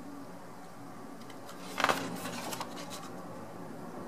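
A page of a small glossy photo book being turned by hand: a brief rustle and crackle of paper about two seconds in, with quiet room tone around it.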